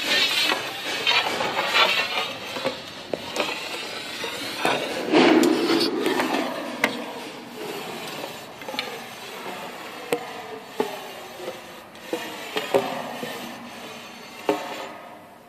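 Handling noise from a phone being moved around while filming: irregular knocks and scraping, loudest in the first few seconds and growing fainter toward the end.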